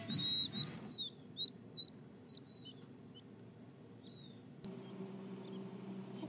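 Button quail chicks peeping: a string of short, high chirps, closely spaced in the first few seconds and fainter later. About two-thirds of the way through, a click brings in a steady low hum.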